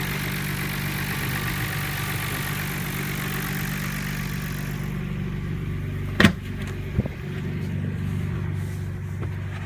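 Nissan Skyline R32 GT-R's twin-turbo RB26DETT straight-six idling steadily at about 950 rpm, its vacuum leak repaired with new gaskets. A high hiss fades out about five seconds in. A sharp knock comes a little after six seconds, followed by a lighter one about a second later.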